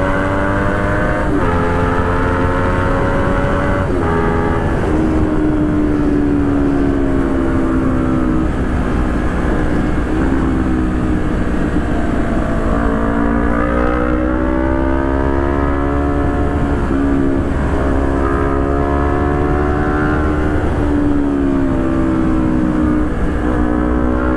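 Honda CBR250RR motorcycle engine under way at road speed, heard from the rider's seat. Its note steps down twice in the first few seconds, sags gradually as the bike slows, then climbs again about halfway through and holds with small dips.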